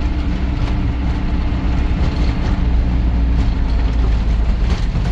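Steady engine and road rumble of an off-road vehicle being driven on a dirt field road, heard from inside the vehicle.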